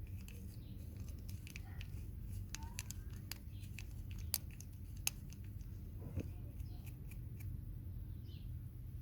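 Irregular small clicks and light scraping from the metal parts of a door lock mechanism being handled and worked on, with two sharper clicks near the middle, over a steady low hum.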